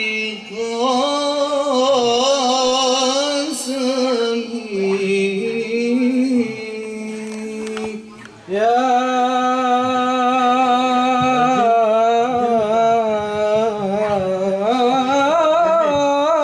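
A man singing an Islamic nasheed, holding long, ornamented notes that waver in pitch. The voice breaks off briefly about eight seconds in, then starts a new phrase.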